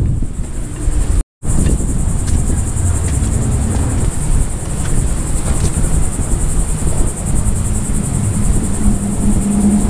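Wind rumbling on the microphone, with a steady high-pitched buzz of insects over it. The sound cuts out completely for a moment about a second in.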